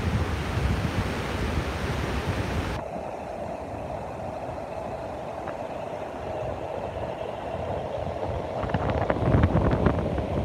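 Wind buffeting a phone microphone over surf washing in on a flat sandy beach. About three seconds in, the sound turns abruptly duller and leaves a steady mid-pitched drone. The rumble and crackle pick up again near the end.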